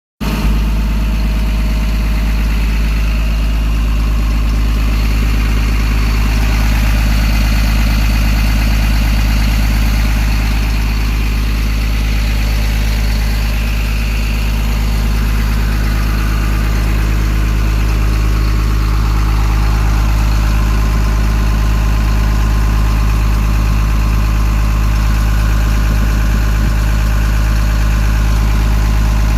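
Diesel engine of a Komatsu PC210 long-arm excavator running steadily at an even, unchanging speed.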